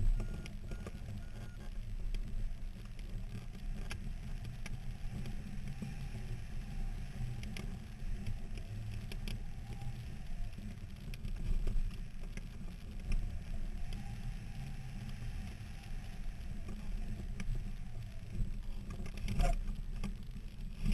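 Wind on the microphone of a camera mounted on a hang glider's control frame in flight: a steady low rumble that rises and falls in gusts, with a few faint clicks near the end.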